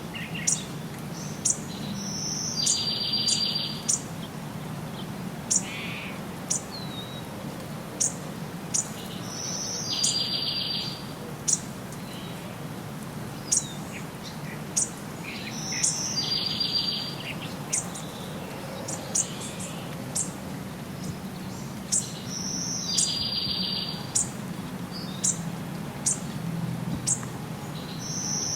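Wild birds singing: many short, sharp, high chirps, and a buzzy trilled phrase repeated about every six to seven seconds, over a steady low hum.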